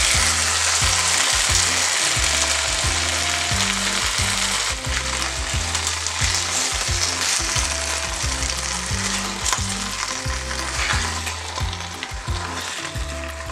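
Sweet and sour sauce sizzling loudly as it hits a hot wok of fried battered chicken, peppers and onion, and is stirred through, the sizzle easing slightly toward the end.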